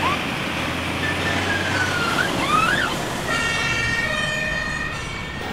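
The HLF 20/16 fire engine's electronic siren (Martinhorn) sounding as the truck pulls away, over engine noise. For the first few seconds the pitch glides up and down; about three seconds in it settles into a steady tone.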